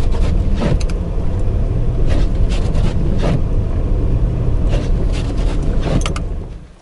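Steady low rumble of a vehicle driving on a snow-covered road, heard from inside the cabin, with scattered short clicks and knocks. It fades out near the end.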